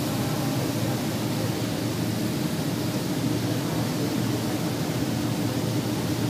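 Flattening rolling mill running: a steady mechanical hum with a low drone, even in level throughout.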